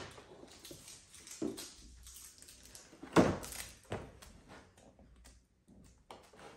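A cardboard toy box handled on a tabletop: a few soft knocks and scrapes, with one louder thud about three seconds in as the box is set down flat.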